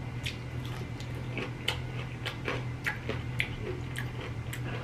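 Close-miked chewing of a fried chicken tender: irregular crunchy, wet mouth clicks, several a second, over a steady low hum.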